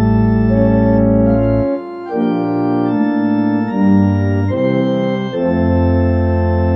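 Organ music: slow, sustained chords that change every second or two over a deep bass note.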